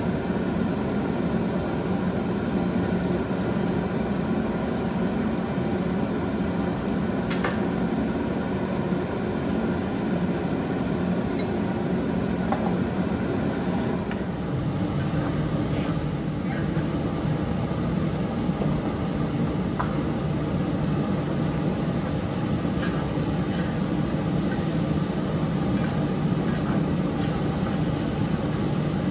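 A steady mechanical drone, with a few light clinks and scrapes of a spatula stirring soya chunk curry in a wok.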